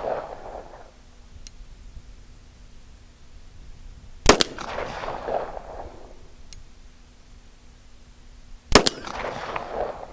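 Two shots from a Springfield Armory TRP 1911 .45 ACP pistol, about four and a half seconds apart, each followed by a fading echo. The rounds are 200-grain lead semi-wadcutter handloads over Accurate No. 2 powder, which the shooter calls pretty hot. A faint tick sounds between the shots, and the echo of an earlier shot is dying away at the start.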